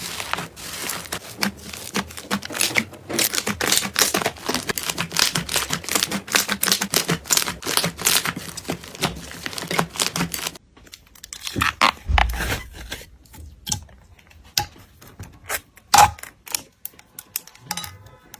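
Slime being handled, making dense crackling clicks and pops for about ten seconds, then sparser, separate pops and clicks.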